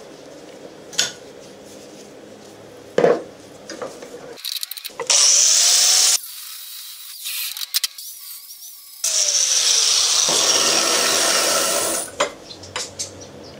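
Steel parts knocking in a bench vise twice, then an angle grinder's abrasive disc grinding the edge of a steel plate in two loud, hissing stretches, each starting and stopping abruptly.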